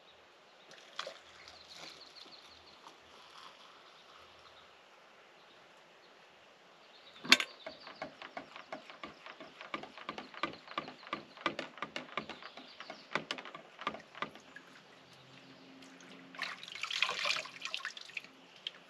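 A sharp click, then several seconds of quick light clicks and taps as camp gear is handled, followed near the end by a short splash of water as hands scoop water from a bowl onto the face.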